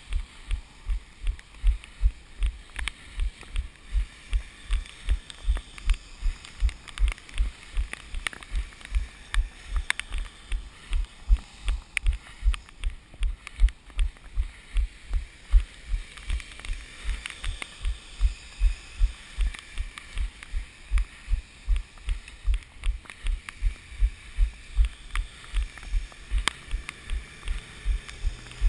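A runner's footfalls: a steady rhythm of dull low thumps, about three a second, as the camera carried on the run is jolted with each stride.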